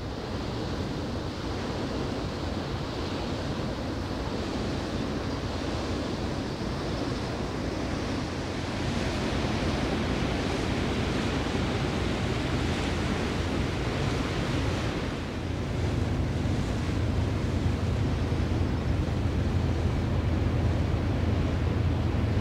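Wind on the microphone and water washing against the stone canal bank, a steady rushing noise. About two-thirds of the way through, a low steady engine drone from a passing ship comes up under it.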